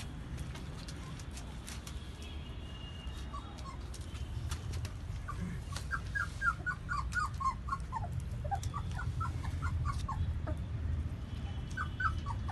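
Puppies whimpering and squealing in short, high, quick calls, several a second, many dropping in pitch, starting about five seconds in, over a steady low rumble.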